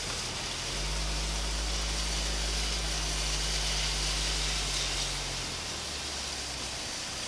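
Steady road and engine noise of a moving vehicle, with a low hum that shifts pitch about a second in and again about five and a half seconds in.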